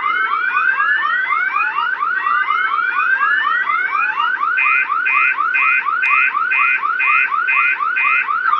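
Electronic alarm sounding as a pulled school fire alarm, cycling through tones like a car alarm. Fast rising chirps come about four a second, with slower long rising wails over them. A steady beeping, about two a second, joins about four and a half seconds in.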